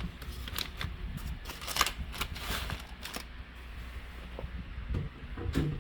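Irregular rustling and clicking of takeout food packaging being handled and opened.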